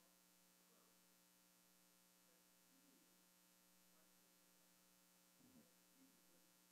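Near silence: a steady, faint electrical hum, with a brief faint sound about five and a half seconds in.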